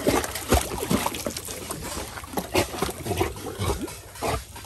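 Labrador retriever swimming and paddling hard in water, making irregular splashes and sloshing.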